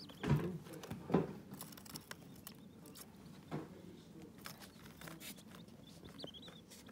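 Day-old quail chicks scratching and pattering about on paper towels, with light clicks of their feet. Two louder knocks come in the first second or so, and faint high peeps near the end.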